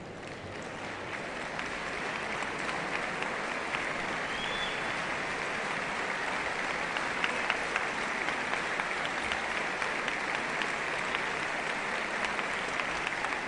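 Large concert-hall audience applauding, the clapping swelling over the first couple of seconds and then holding steady. A brief high-pitched tone rises out of it about four seconds in.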